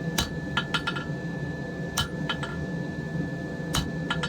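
Hand hammer striking a hot-cut chisel into a red-hot wrought iron bar, cutting it partway through: about eight sharp metallic clinks at an uneven pace, with a steady hum underneath.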